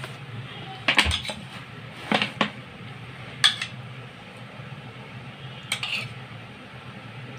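A metal spoon clinking against a small bowl and a steel platter as food colour is dabbed onto chicken pieces: about half a dozen separate light clinks, spaced irregularly, over a faint steady hum.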